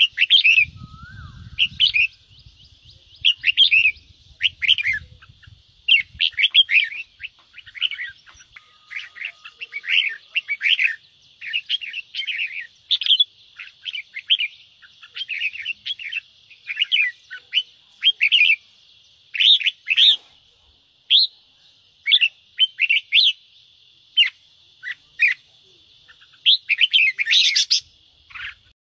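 Red-whiskered bulbul giving fast, harsh chattering scold calls ('ché'), in bursts of short sharp notes with brief pauses. These are the agitated calls played to fire up captive bulbuls. The calls cut off suddenly near the end.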